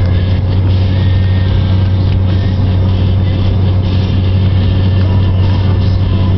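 Steady low drone of engine and tyre noise heard from inside the cabin of a vehicle driving on a snow-covered road.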